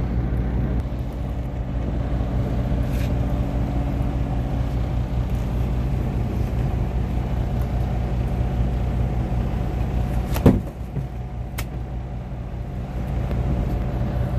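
Boat engine running steadily with a low hum. A sharp knock comes about ten seconds in, followed a second later by a fainter click.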